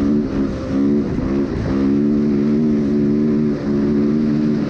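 Honda CRF450 dirt bike engine running at high revs under throttle, its pitch dipping briefly a few times and climbing back up.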